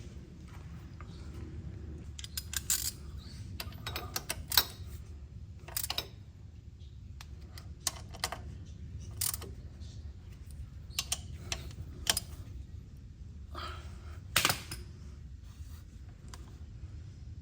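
Irregular light metallic clicks and clinks of hand tools and timing-chain parts being handled while a timing chain is fitted, over a low steady hum. The loudest clink comes about fourteen and a half seconds in.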